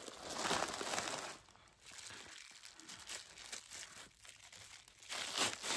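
Thin plastic bags crinkling and rustling as they are handled and a knotted plastic wrapping is pulled at. It is louder in the first second or so and again near the end, with quieter scattered crinkles in between.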